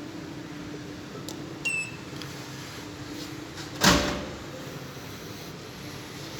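Vending machine buttons pressed with two short beeps, then about four seconds in a single loud thump as a boxed Hot Wheels car drops into the machine's delivery bin, with a low steady hum underneath.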